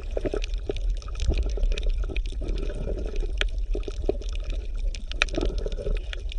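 Underwater ambience: bubbling, gurgling water with irregular small clicks and pops over a steady low rumble.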